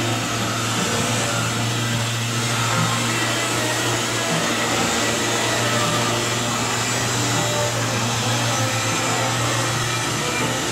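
Pneumatic orbital sander running steadily on shop air: a constant airy hiss over a low hum, with no pauses or changes in speed.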